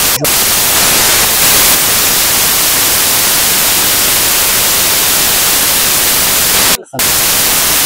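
Loud, steady static-like hiss spread evenly from low to very high pitch, with a brief dropout about seven seconds in.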